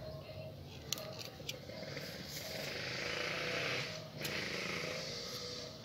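Bark being cut and stripped from a young avocado tree's trunk with a small knife: a few sharp clicks from the blade, then a rasping, tearing noise lasting a couple of seconds, which breaks off briefly about four seconds in and then goes on.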